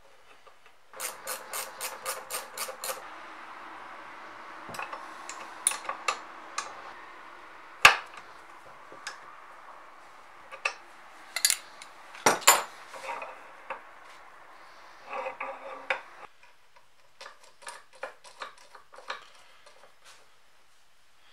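Metal parts and a steel wrench clinking and knocking while bolts on a cast-metal knife sharpener are tightened and its parts are handled. There is a quick run of clicks near the start and one sharp metallic knock about eight seconds in, over a steady hum that cuts off abruptly about three quarters of the way through.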